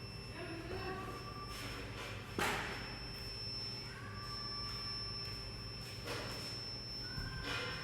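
Induction melting furnace running with a steady high whine and low electrical hum, with several sharp metal knocks and clanks over it, the loudest about two and a half seconds in.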